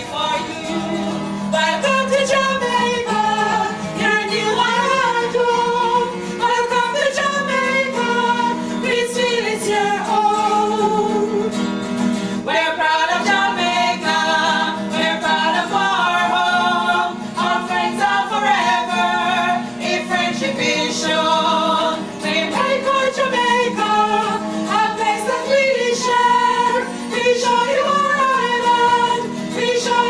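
A group of singers performing a song together, accompanied by a strummed acoustic guitar.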